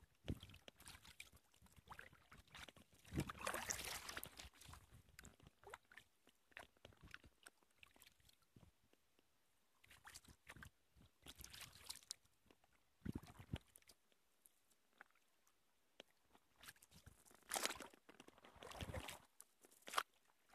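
Kayak paddle dipping into the river in a few short splashes several seconds apart, with small clicks and knocks between them and quiet stretches in between.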